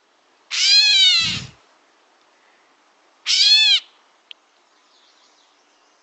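Gray catbird's mewing call, played from a recording: two cat-like mews, each rising then falling in pitch, the first about half a second in and a shorter one about three seconds in.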